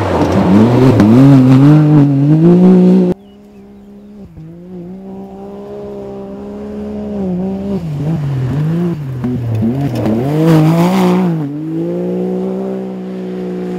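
Can-Am Maverick X3 side-by-side rally car's engine revving hard, its pitch rising and falling through the bends as it passes close. About three seconds in the sound cuts suddenly to a quieter run of the same engine. It swells to a louder pass around ten seconds in, then holds a steady pitch as the car drives away up the dirt track.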